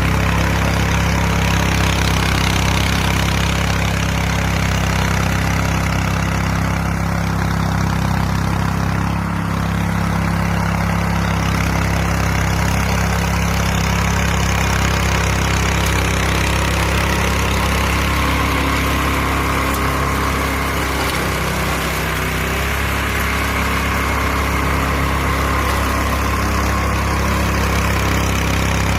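Small engine of a homemade radio-controlled mower running steadily.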